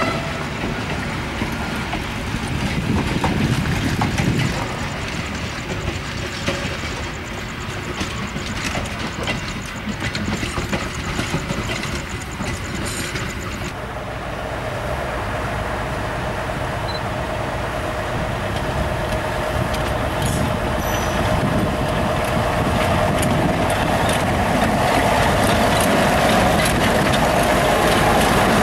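A passenger train running past, wheels rumbling on the rails. About halfway through, a Krupp D301 diesel-hydraulic shunting locomotive takes over: it is moving with a flat wagon, and a steady engine and transmission whine grows louder as it comes closer.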